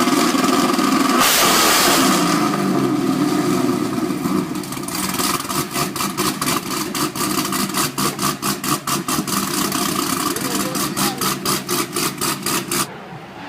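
A car engine running close by, with a loud rush about a second in, then settling into a rhythmic pulsing idle of about four beats a second that cuts off suddenly near the end.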